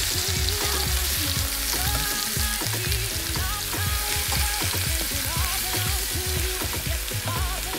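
Chicken leg quarters sizzling as they brown in olive oil in a pan, turned now and then with metal tongs, over background music with a steady bass line.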